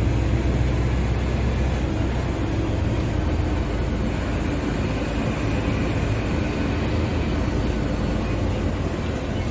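Mercedes-Benz OF-1721 Bluetec 5 bus's diesel engine running steadily: a deep, continuous engine hum over a broad rumble, a little stronger in the first couple of seconds.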